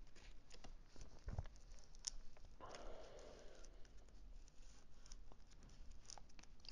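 Cut vinyl decal sheet being peeled apart slowly by hand, the clear transfer film lifting the letters off the backing: faint ticks and scratchy paper sounds from fingertips and nails. There is a soft low knock just over a second in and a brief rustle about three seconds in.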